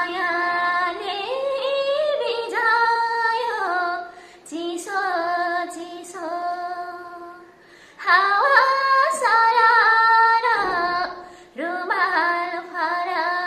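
A woman singing a Nepali folk tune solo and unaccompanied, in long held phrases that slide into their notes, with short breaths between phrases.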